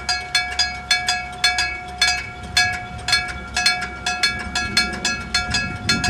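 A Japanese railroad crossing's electric bell alarm (denshō) ringing: a hammer strikes a metal bell about three to four times a second, somewhat unevenly, with the bell's tone ringing on between strikes. The bell is already in poor condition, and it was soon replaced by an electronic sound. A low rumble builds near the end.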